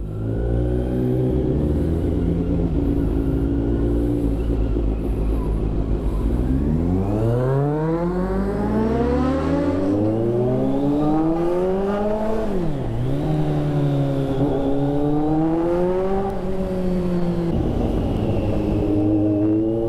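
Kawasaki Z900's inline-four engine with aftermarket SC Project stainless steel headers, running at a low steady speed, then revving up about a third of the way in as the bike pulls away. The revs drop sharply once a little past halfway, like a gear change, climb again, and fall back near the end.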